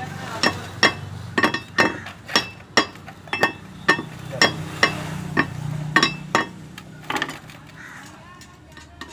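Hammer striking metal in a steady series of ringing blows, about two a second, that stop about six and a half seconds in; a few lighter metal taps follow.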